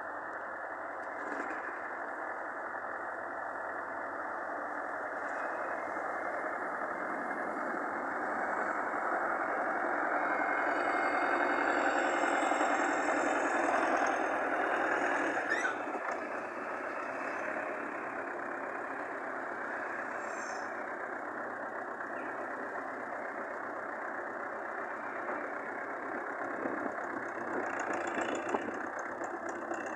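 A vehicle engine running steadily, growing louder about ten to fifteen seconds in and then easing off.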